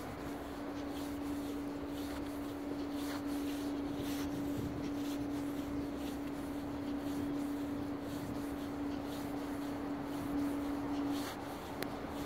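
Footsteps of someone walking on an asphalt sidewalk, faint and regular, over a steady hum that breaks off shortly before the end.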